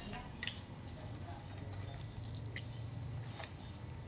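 Small knife scraping and clicking on a carp being cleaned by hand: a few short, scattered ticks and scratches over a low steady hum.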